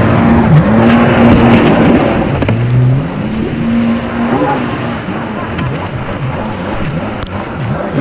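Kommander GP1 stand-up jet ski running under way, its engine holding a steady note that dips and rises repeatedly in the second half as the throttle changes, over constant wind and water rush.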